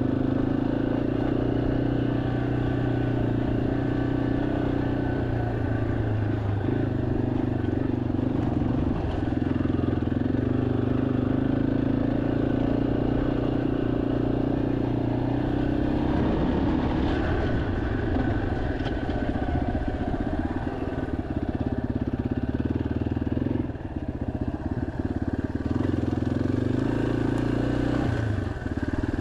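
Yamaha XT250's air-cooled single-cylinder four-stroke engine running steadily while the bike is ridden at low speed. Its note dips and picks up again a few times as the throttle eases off and opens.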